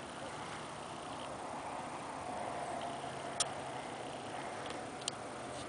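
Quiet outdoor background with two sharp clicks about a second and a half apart.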